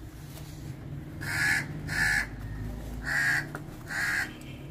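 Crow cawing: four short caws in two pairs, the caws of each pair under a second apart.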